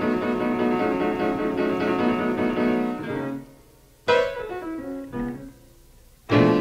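Background music led by piano: sustained chords that fall away about three seconds in, then single struck chords with pauses between them, and a loud chord just before the end.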